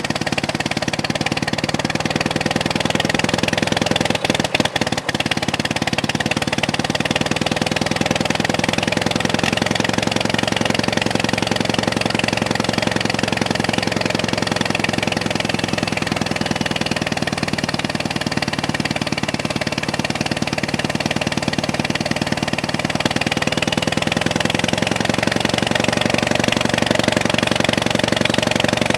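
Old John Deere tractor's carbureted four-cylinder gasoline engine running steadily just after starting on freshly cleaned spark plugs. It tends to run on only two or three of its four cylinders, a misfire the owner puts down to too little voltage reaching the coil.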